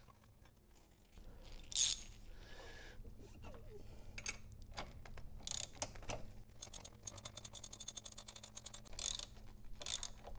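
Ratchet wrench clicking in quick runs as it drives down the nut on a car battery's hold-down bracket. There are a few louder clatters of the tool in between.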